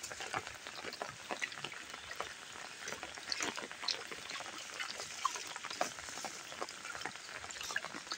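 Heavy rain falling onto standing water on a flat concrete roof: a steady, dense patter of many small drops.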